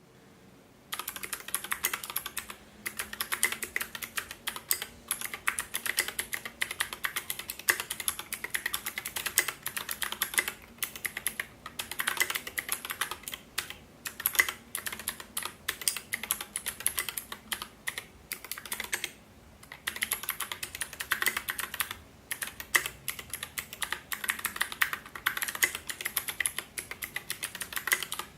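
Steady fast typing on a custom 60% mechanical keyboard with 65g stickered Gatistotle switches (Aristotle stems in Gateron housings), an aluminium plate and SA keycaps, with a lubed Cherry stabilizer on the spacebar. Rapid key clacks in runs broken by brief pauses.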